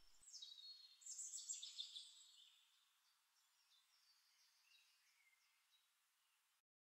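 Near silence, with faint high-pitched chirps and short falling glides in the first two seconds, then dead digital silence near the end.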